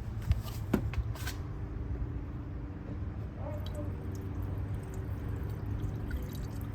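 A few sharp plastic clicks and snaps in the first second and a half as the cap of a plastic jug of Rain-X windshield washer fluid is opened, followed by quieter handling over a steady low background.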